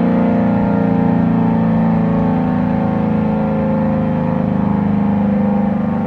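Federal Signal SD-10 omnidirectional electromechanical warning siren sounding a loud, sustained tone that wavers gently in pitch during a siren-system test. Fainter tones from more distant sirens blend in.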